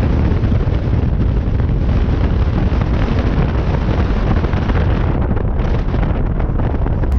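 Wind buffeting a camera microphone mounted low on the outside of a moving VW Beetle, mixed with tyre and road noise; a steady, heavy rush.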